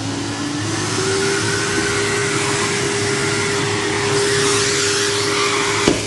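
Henry (Numatic) cylinder vacuum cleaner running: its motor, just switched on, is still spinning up in the first second with a rising whine, then runs steadily with a loud rushing hiss. A sharp knock sounds near the end.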